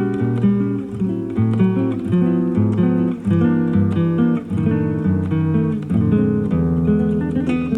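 Classical guitar played live, a continuous flow of plucked notes, heard from a cassette recording of an FM broadcast with the treble dulled.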